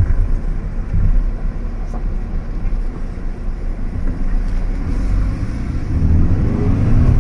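Fiat Egea engine and road noise heard inside the cabin while driving, with the engine pitch rising near the end as it revs higher under acceleration.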